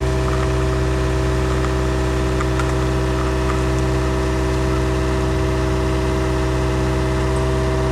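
Excavator's diesel engine running at a steady idle, an even drone with a fixed pitch.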